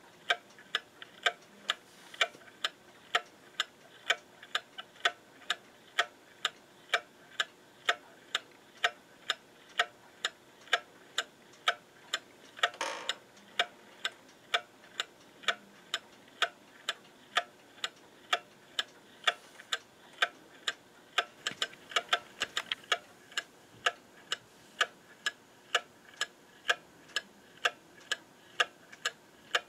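Brass escapement of a Welch Spring & Co Patti clock movement ticking steadily, about two crisp ticks a second. A short hiss a little under halfway through and a brief flurry of extra clicks about three-quarters of the way through.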